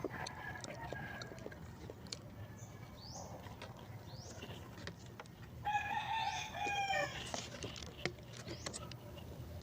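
A rooster crows once, a single drawn-out call of about a second and a half a little past the middle, falling in pitch at its end. Faint clicks and mouth sounds of someone eating are heard around it.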